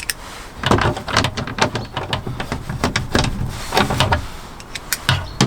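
Irregular clicks and knocks of a Land Rover Discovery 4 rear door's plastic trim and fittings being handled and pushed back into place, several a second, most dense about a second in and again around three to four seconds in.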